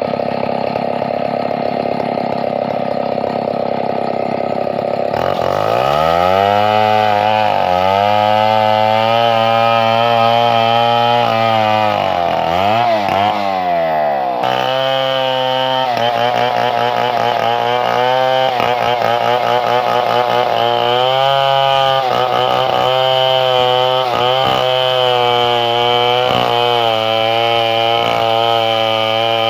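Chainsaw engine idling, then revved up about five seconds in and held at high speed, its pitch dipping and wavering as it bogs under load cutting through wood.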